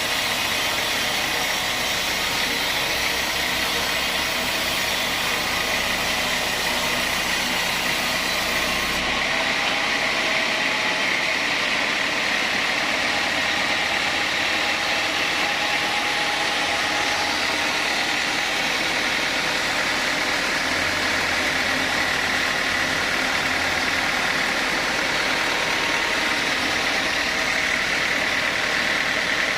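Sawmill machinery running steadily, a continuous mechanical din with a constant high whine. About nine seconds in the sound changes abruptly and the hiss at the top drops away.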